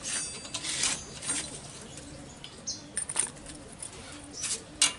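Scrapes and clicks of hand work on the ignition parts of a Vespa engine as parts are brushed and fitted, with a bird cooing in the background.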